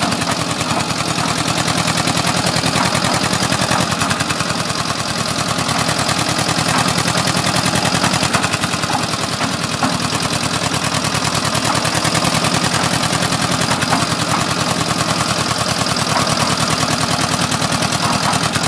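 Single-cylinder stationary diesel engine running with rapid, even exhaust beats as it is turned down to run slowly.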